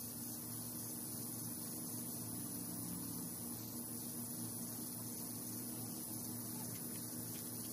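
A steady low hum with a faint high hiss.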